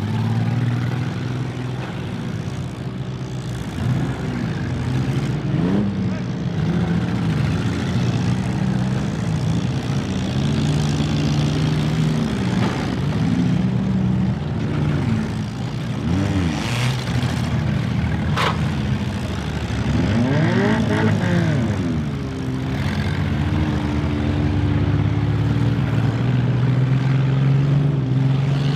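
Several demolition derby cars' engines running loud and revving repeatedly, the pitch rising and falling as they accelerate and back off. A single sharp bang, like a hit between cars, comes about eighteen seconds in.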